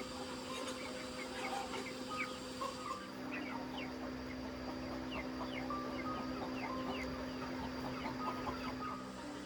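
A flock of chickens clucking, with many short, high, falling peeps throughout. A low steady hum comes in about three seconds in.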